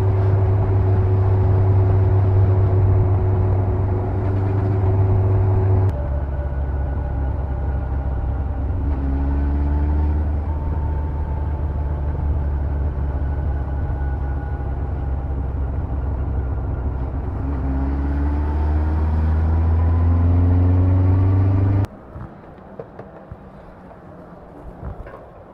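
Yamaha FZS1000 Fazer's inline-four engine running on the move. Its pitch rises twice as it speeds up. Near the end the sound drops suddenly to a much quieter passage with a few faint clicks.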